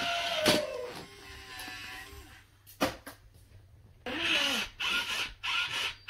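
Electronic sounds from a remote-control robot elephant toy: a tune that fades out over the first two seconds, a single click near three seconds, then from about four seconds a new sound effect with sliding pitch.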